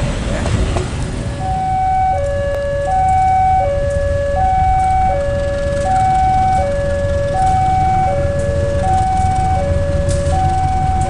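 Railway level-crossing warning alarm sounding, a higher and a lower electronic tone taking turns, each held for under a second and repeating steadily, warning of an approaching train. It starts about a second and a half in, over a steady low rumble.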